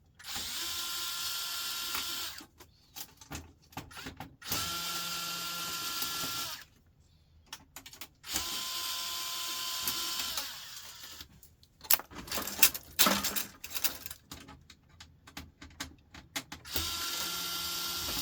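Power drill-driver running in short bursts of about two seconds, four times, backing screws out of a laser printer's casing, with clicks and knocks of screws and parts being handled in between.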